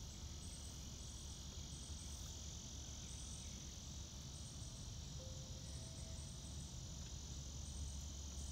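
Insect chorus outdoors: a steady high buzz with short chirps repeating about once a second, over a low rumble.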